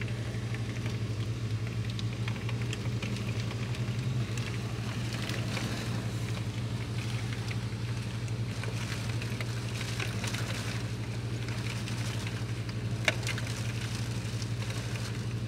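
Heavy tropical-storm rain falling, a dense crackle of drops, over a steady low hum. A single sharp tick about thirteen seconds in.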